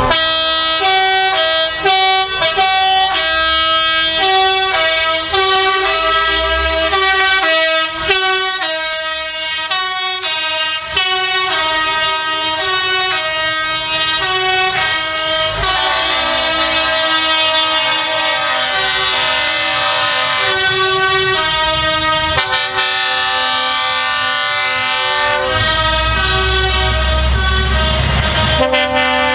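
Truck musical air horn playing a tune of quick stepped notes throughout. A low engine rumble joins near the end.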